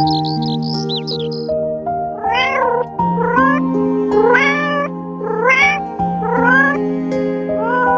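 Cat meowing repeatedly, six rising-and-falling meows about once a second starting about two seconds in, over gentle background music. Quick high bird chirps are heard in the first second and a half.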